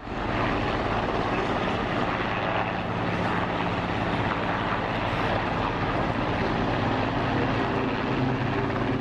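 Large military helicopter hovering low, its rotor and turbines making a steady loud noise with a low hum.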